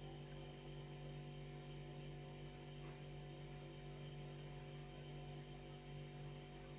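Faint steady electrical hum, a low buzz made of several unchanging tones stacked one above another.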